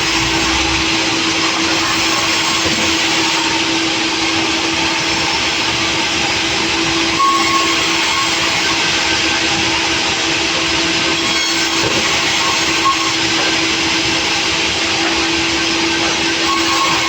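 Sawmill saw machinery running steadily: a constant hum under a loud, even rushing noise.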